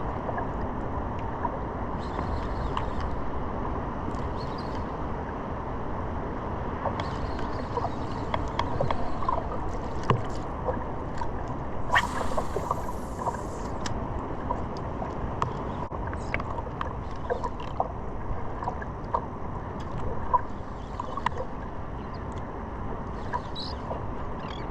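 Sea water sloshing and gurgling against a surfboard on the ocean surface, with a steady wash of wind and water and scattered small clicks and splashes. There is a short, brighter splash or hiss about halfway through.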